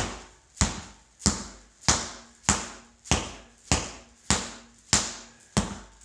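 Dead blow hammer striking a partly inflated 8-ply ATV tire on its rim, about ten steady blows, one every 0.6 s or so, each a dull thud. The blows are to help seat a tire bead that has not set all the way around.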